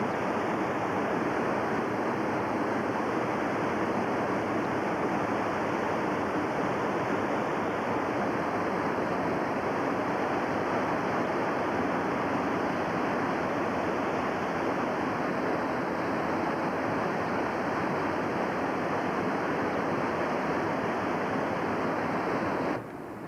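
Rushing water of the North Fork Wilson River in flood: a steady, even noise that cuts off suddenly near the end.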